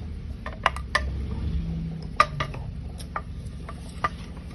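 Metal tools and engine parts clinking and tapping, about a dozen sharp irregular clinks, over a steady low hum.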